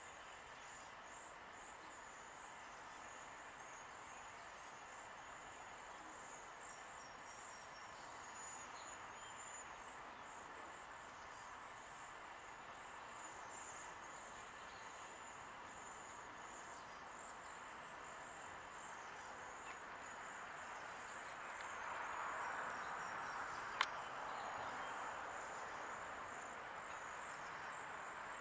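Faint outdoor ambience: a steady, high-pitched insect-like chirring over a soft hiss, with one sharp click late on.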